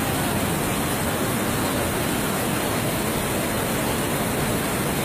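Flash floodwater rushing down a street in a muddy torrent: a steady, loud, unbroken rush of water.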